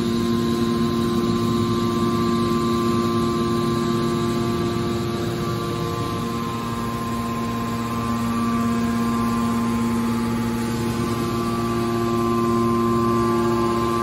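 Hydraulic scrap aluminum baler's power unit running: a steady electric-motor and pump hum holding several fixed tones.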